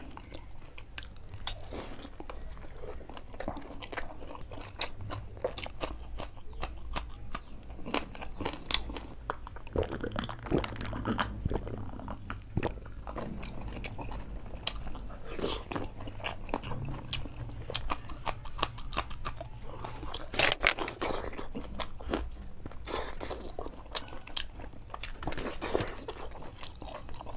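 Close-miked eating: a man chewing and biting into pieces of chicken curry eaten by hand, a dense run of irregular wet clicks, smacks and crunches. One louder burst stands out about three-quarters of the way through.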